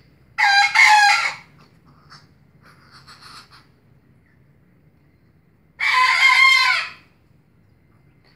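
A rooster crowing twice, loud, each crow about a second long and the two about five seconds apart.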